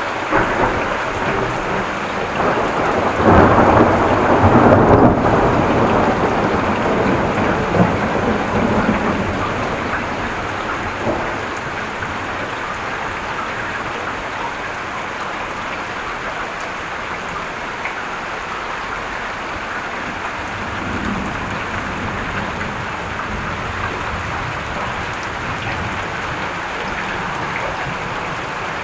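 Heavy rain pouring steadily, with a loud roll of thunder a few seconds in that rumbles on and fades away over several seconds.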